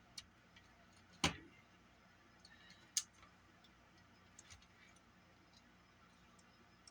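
A few scattered small clicks and taps of tools and small parts being handled while working on a cassette Walkman, with one louder knock about a second in and a sharp click about three seconds in.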